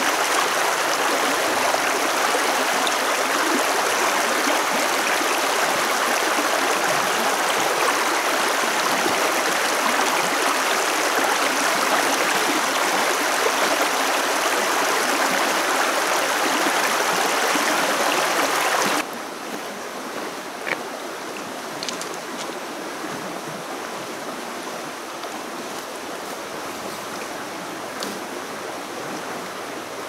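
Shallow stream rushing over a stony riffle, a steady loud wash of water. About two-thirds of the way through it drops suddenly to a quieter, gentler flow, with a few faint ticks.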